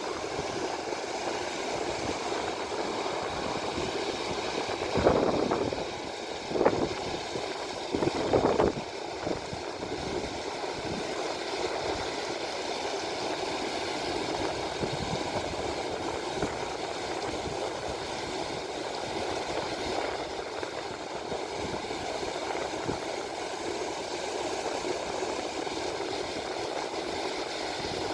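Steady rushing of river water pouring over a weir. A few brief louder bursts come between about five and nine seconds in.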